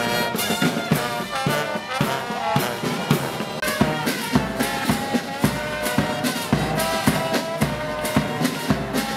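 Military brass band playing a march: sousaphones, trombones and trumpets over a steady bass-drum beat of about two strokes a second.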